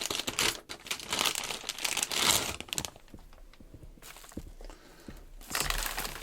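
Packaging crinkling and rustling as it is handled and pulled off the tripod ball head, in two bouts with a quieter pause between them.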